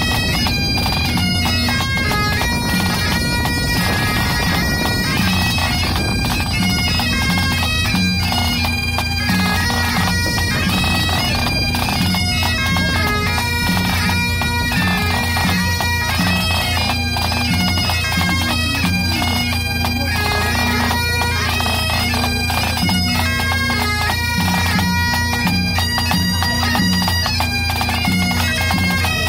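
Pipe band playing a tune: three Great Highland bagpipes, their drones holding a steady low tone under the chanter melody, with a snare drum and a tenor drum keeping time.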